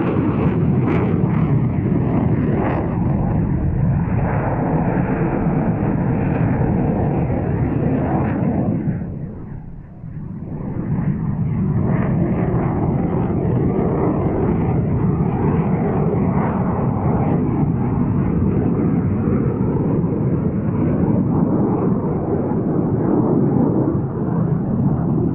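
Eurofighter Typhoon FGR4 fighter jet's twin EJ200 turbofan engines, loud jet noise as it flies display manoeuvres. The noise fades briefly about nine seconds in, then builds back up.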